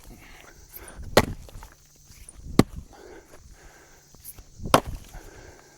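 Three sharp cracks of red oak firewood being split, spaced about one and a half to two seconds apart.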